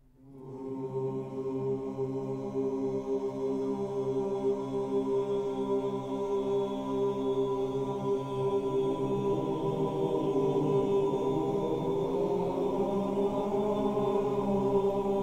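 Background music of sustained choir-like chanting: held, slowly changing chords that fade in at the start and then hold steady.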